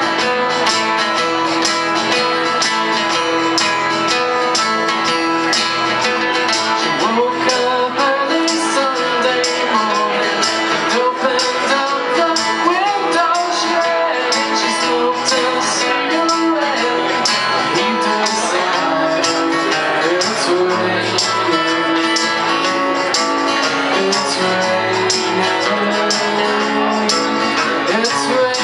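Live acoustic band music: two acoustic guitars strummed, a male lead voice singing, and a hand shaker and tambourine keeping a steady beat.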